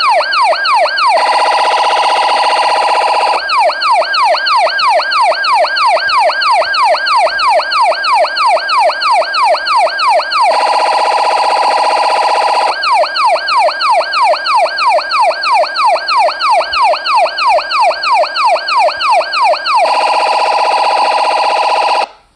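Police siren ringtone: a fast yelp of falling sweeps, about three a second, alternating every several seconds with stretches of steady held tone. It cuts off suddenly at the end.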